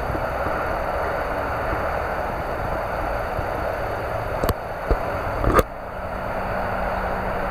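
Steady rushing outdoor noise of water and wind, with two sharp knocks from the camera being handled, about four and a half and five and a half seconds in.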